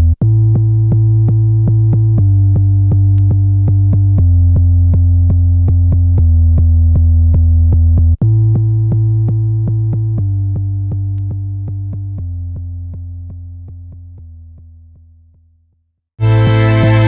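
Electronic music: sustained synthesizer chords change about every two seconds over a fast, even drum-machine tick. Partway through, the music slowly fades away to silence. Just before the end, a louder and fuller section comes in abruptly.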